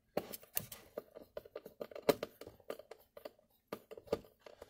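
Hand screwdriver driving a small screw through a D-ring picture hanger into a 3/4 inch white pine board: a run of faint, irregular clicks and scrapes, several a second, as the screw turns in.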